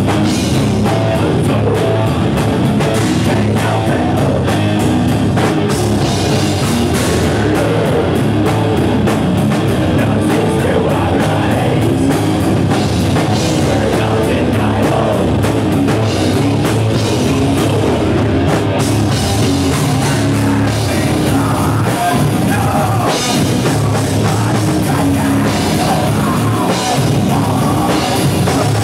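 Live heavy metal band playing loud and continuously: electric guitar and drum kit, with singing.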